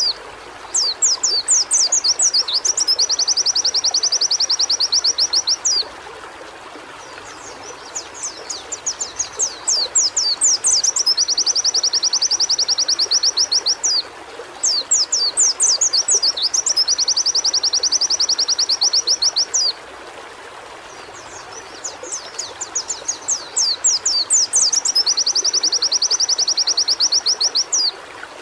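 A pleci (white-eye) singing in repeated phrases. Each phrase is a run of quick sweeping chirps followed by a fast, even, high trill of about three seconds, four phrases in all. A steady hiss lies underneath.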